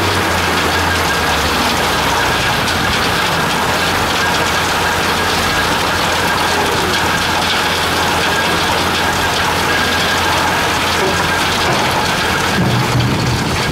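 Gold-mining trommel plant running: a steady clatter and rush of gravel and water tumbling through the rotating screen drum, over the low hum of its engine.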